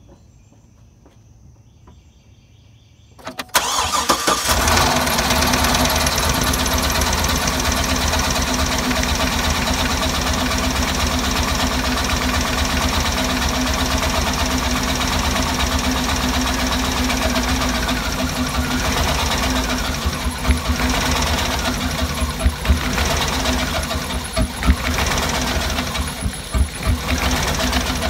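Cadillac Escalade V8 cranking briefly and catching about three seconds in, then idling. The idle turns uneven and stumbling in the second half: the engine is misfiring.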